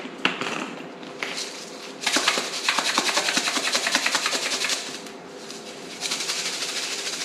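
A spoon stirring dry spice rub in a small ceramic bowl: a few clinks, then quick, even scraping and tapping strokes in two spells with a short pause between them.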